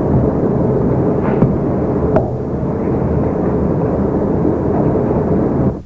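Steady, loud rumbling noise, like a machine running, with a couple of light clicks about one and two seconds in; it cuts off suddenly near the end.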